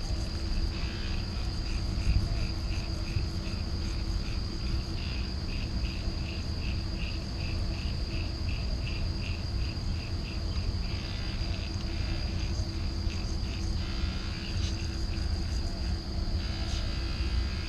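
Insects chirping: a steady high trill with rhythmic chirps about two to three times a second over a low background rumble. The chirps stop about two-thirds of the way through.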